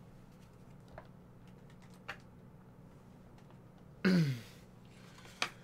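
A few faint clicks, then about four seconds in a short wordless sound from a man's voice, falling in pitch, like a sigh or grunt.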